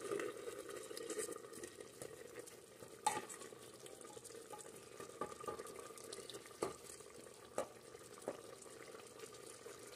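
Wooden spoon stirring sausages, onion and sauce in an open pressure cooker, over a faint steady sizzle, with a few sharp knocks of the spoon against the pot, the clearest about three seconds in.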